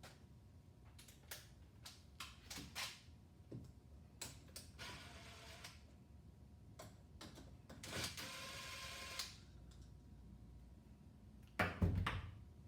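Hands working at a workbench: scattered light clicks and clinks of small parts and tools, two short hissing or rustling passages, and a louder knock near the end.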